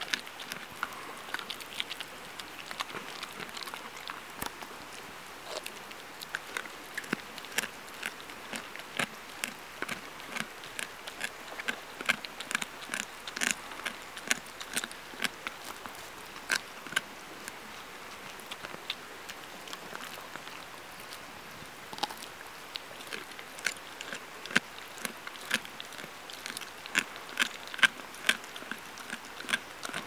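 A dog chewing a raw kokanee salmon: irregular sharp crunches and wet bites as she works through the fish, thinning out for a few seconds past the middle.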